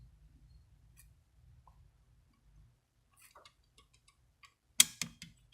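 Light metallic clicks and ticks as a worn clutch disc with a battered splined hub is handled, with a short sharp clatter of several clicks about five seconds in.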